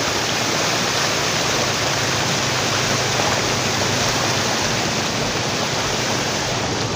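Fast-flowing floodwater rushing across a flooded road, a steady, even rush of water.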